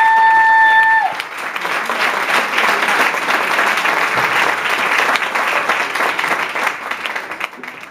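Audience applauding, with one held high note over the clapping in the first second. The applause thins and fades near the end.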